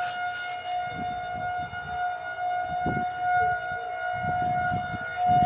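A steady high-pitched siren-like tone with overtones, held at one unchanging pitch, its source unidentified.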